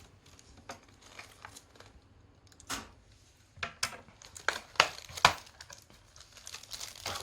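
Plastic packaging crinkling and rustling with scattered sharp clicks as an unboxed figure and its pieces are handled, busiest and loudest around five seconds in.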